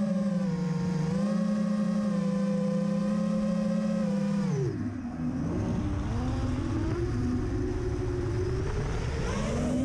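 Quadcopter drone's electric motors and propellers humming steadily. About halfway the pitch drops sharply as the throttle is cut, then climbs back up near the end as the throttle comes back on.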